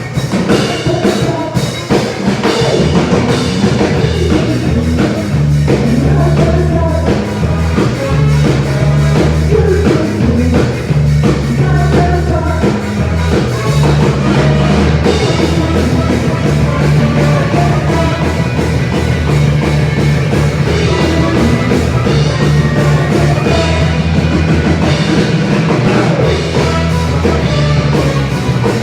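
Live rock band playing loud and steady, a drum kit driving the beat under a moving bass line.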